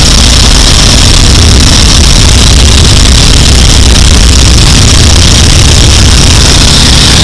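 Boeing Stearman biplane's radial engine running steadily in flight, very loud, heard from the open cockpit with the rush of wind over the microphone.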